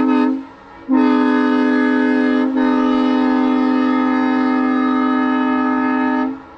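Burnett Power Saws M3 three-chime locomotive air horn blowing a clean chord: a blast ends just after the start, then a long steady blast of about five seconds follows, with a brief dip about two and a half seconds in. The horn is fully restored and sounds flawless.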